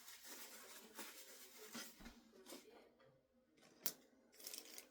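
Near silence in a small room: faint rustling and small handling clicks, with one sharper click nearly four seconds in.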